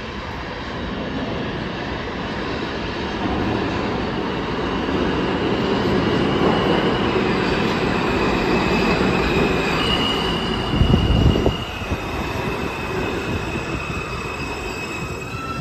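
R160 subway train entering the station and braking to a stop: a rumble of wheels on rail that builds as the cars arrive, with high steady wheel squeals from about five seconds in. There is a single heavy thump about eleven seconds in, after which the rumble eases as the train slows.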